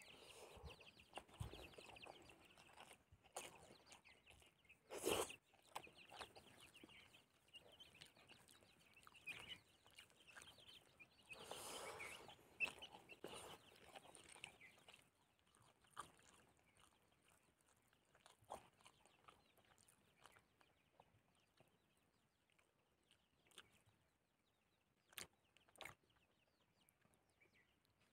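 Faint clucking of chickens in the first half, then fading, with scattered soft clicks of eating by hand and chewing.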